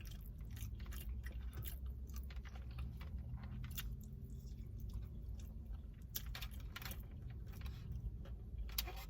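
Close-up chewing and biting of a person eating a crispy chicken, rice and black bean bowl, with many small sharp crunchy clicks over a low steady hum.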